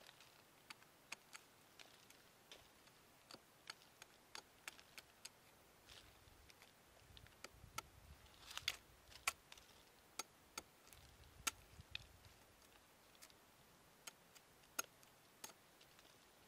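Sharp, irregular knocks of a large knife blade chopping into a cashew tree trunk, hacking the bark open to reach the grubs boring inside. The strikes come about once or twice a second, with the hardest few around the middle.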